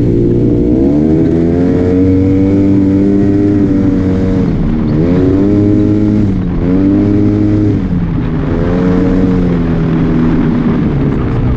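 Arctic Cat Wildcat Trail 700 side-by-side's single-cylinder engine running under way, revs rising and falling about four times as the throttle is worked, settling lower near the end.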